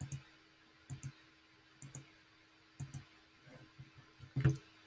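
Computer mouse clicking: four quick double clicks, press and release, about once a second, then a louder dull knock near the end.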